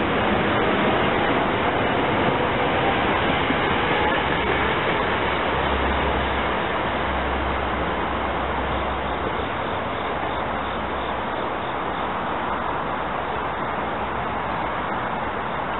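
SEPTA Silverliner IV electric multiple-unit train running away along the track. Its noise fades slowly as it recedes, with a low hum through the middle of the passage.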